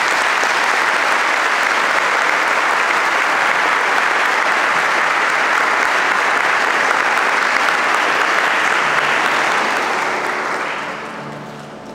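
Congregation applauding, a loud, steady clapping that dies away near the end.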